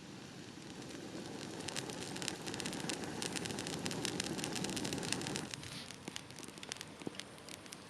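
Wood fire burning and crackling: a rushing noise swells over the first few seconds with dense snapping pops on top, then drops suddenly about five and a half seconds in, leaving scattered crackles.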